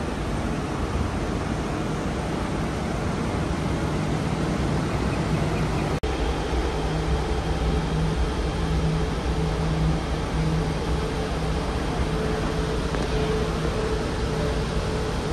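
KTM ETS electric train standing at a platform, its on-board air-conditioning and auxiliary equipment giving a steady rushing noise with a low hum. The sound drops out for an instant about six seconds in, then carries on much the same with a faint higher tone added.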